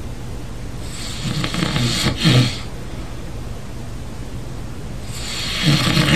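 A sleeping person snoring loudly: two long snores about four seconds apart, the second one near the end.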